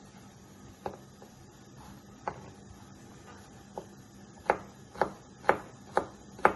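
Kitchen knife dicing zucchini on a plastic cutting board. A few scattered knocks come first, then steady chops at about two a second over the last two seconds.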